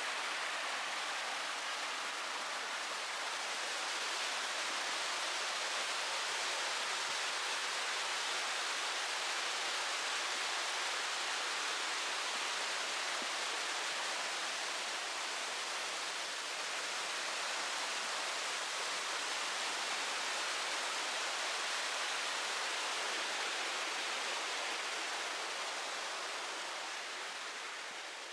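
Mountain stream cascading over waterfalls: a steady, even rush of water that fades out near the end.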